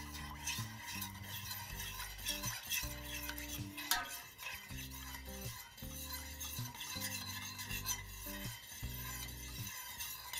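Metal spoon stirring salt into water in a stainless steel pot, a continuous scraping swish as the salt dissolves for pickling brine, with one sharp clink about four seconds in. Soft background music underneath.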